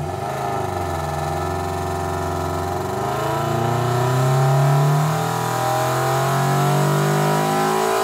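Subaru BRZ's flat-four boxer engine, fitted with unequal-length headers and a full aftermarket exhaust, running at full throttle under load on a hub dyno. Its note climbs steadily in pitch from about 2,700 rpm toward 6,800 rpm as the run goes on.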